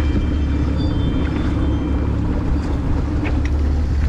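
A boat motor running steadily with a low hum, wind noise over it.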